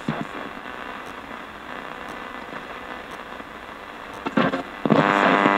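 Portable FM radio used as a ghost box, sweeping through the band and giving a steady static hiss. A brief blip comes about four seconds in, and near the end a loud, steady buzzing hum takes over.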